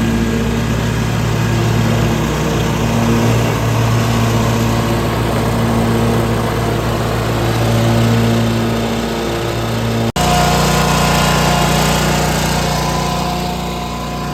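Commercial stand-on mower's Kawasaki 1000 engine running steadily while mowing wet grass. The hum breaks off abruptly about ten seconds in and comes back with a different pitch.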